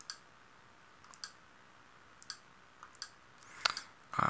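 Sharp single clicks of keys being pressed to step through an on-screen menu, about one a second and closer together near the end, with a louder, longer rustle near the end.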